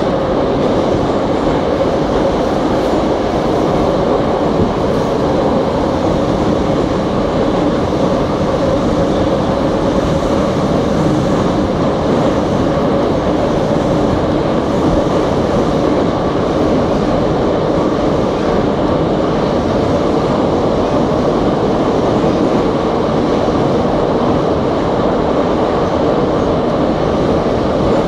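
Metro train running at speed through a tunnel, heard from inside the passenger car: a loud, steady rumble that runs on without a break.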